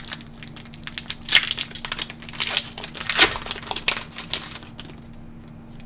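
Foil trading-card booster pack (Pokémon Scarlet & Violet—151) being torn open, its wrapper crinkling and ripping in a dense run of crackles. It quietens after about four and a half seconds.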